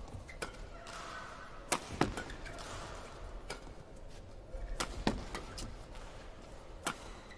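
Badminton rackets striking a shuttlecock back and forth in a doubles rally: a string of sharp hits, some close together, the loudest about two and five seconds in.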